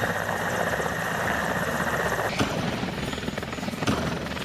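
Helicopter sound effect: steady rotor and engine noise that stops abruptly at the end.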